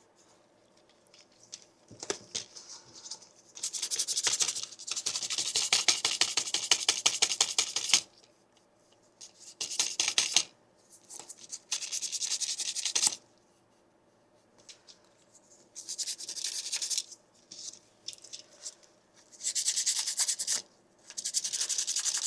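Hand sanding of a 3D-printed plastic claw: rapid back-and-forth scratchy strokes in several bursts, the longest about four seconds, with short quiet pauses between them.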